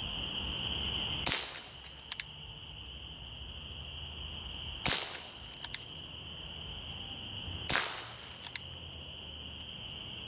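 Three shots from a Gamo PR-776 CO2 pellet revolver, about three seconds apart, each a sharp pop followed under a second later by two faint clicks. A steady high-pitched hum runs underneath.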